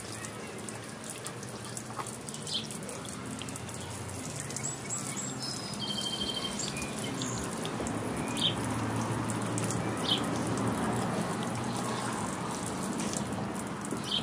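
Lawn sprinkler spraying water onto pavement, a steady hiss and splatter that grows a little fuller through the middle, with a few short bird chirps above it.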